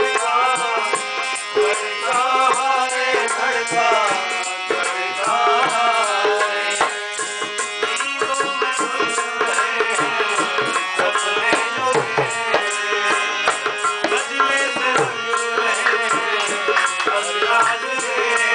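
Live qawwali music: a man's wavering sung line over harmonium and tabla for about the first seven seconds, then the tabla takes over with a fast, busy rhythm while the harmonium's held notes carry on beneath.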